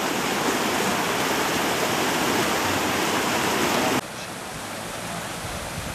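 A steady, even rushing noise, loud for about four seconds, then dropping abruptly to a quieter rushing noise.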